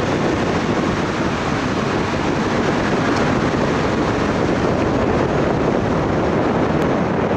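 Floodwaters of a swollen creek rushing past in a steady, loud noise.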